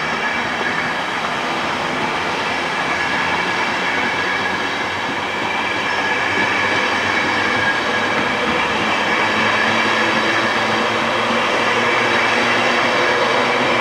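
East Coast InterCity 225 train of Mark 4 coaches running past on the adjacent track: a steady rolling noise of wheels on rail with a few steady tones over it, growing gradually louder.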